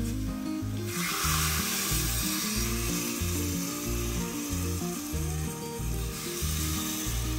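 Water poured from a clay bowl into a clay cooking pot of cut mango pieces: a steady splashing rush that starts about a second in and stops about six seconds in. Background music with a slow repeating bass line plays throughout.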